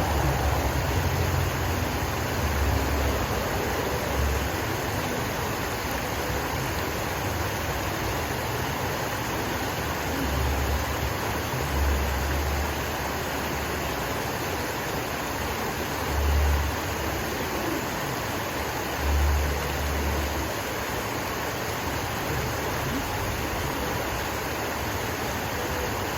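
Water from a man-made stream and waterfall gushing over rocks, a steady rushing. Several brief low rumbles break in now and then, the strongest about two-thirds of the way through.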